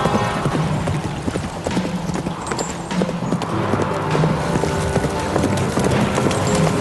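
A horse galloping: fast, continuous hoofbeats on dry ground, with film music playing underneath.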